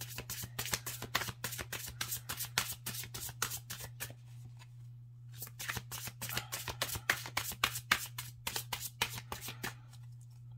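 A deck of divination cards being shuffled by hand: a rapid run of crisp card flicks, a short pause about halfway, then a second run. A steady low hum sits underneath.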